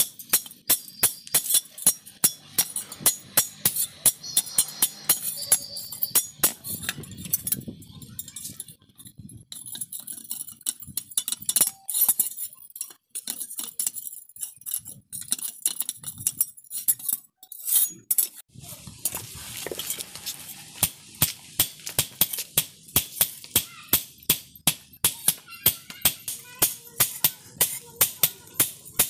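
Hand hammer striking a steel spade blade on an anvil: a run of sharp metallic blows about three a second, thinning out to scattered strikes midway and then picking up again.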